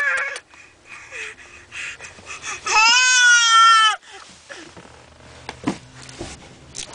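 Baby vocalizing: a short wavering cry right at the start, then one long, loud, high-pitched squeal about three seconds in, lasting just over a second and dropping at the end.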